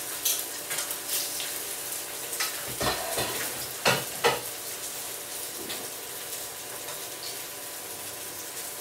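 Fish fillets frying in oil in a frying pan, giving a steady sizzle. A few sharp knocks of things being put down on the counter come just after the start and around three to four seconds in.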